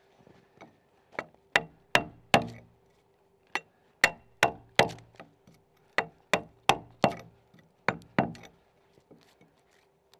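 A chisel being driven into a log with a series of sharp blows, cutting the cog of a Scandinavian saddle-notch corner. About fifteen strikes come in short groups of two to four and stop shortly before the end.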